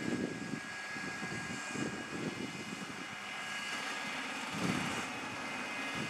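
Tractor engine running at a distance, with uneven low rumbling surges over a faint steady whine.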